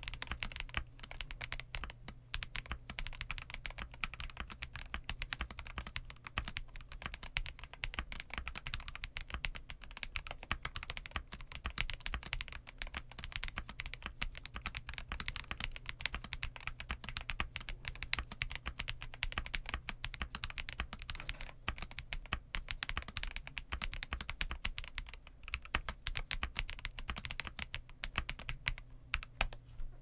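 Fast, continuous typing on a WhiteFox Eclipse mechanical keyboard in a plastic LoPro case, with Moondrop Tessence tactile switches and Ghost Judges Bow keycaps: a dense, steady stream of keystroke clacks.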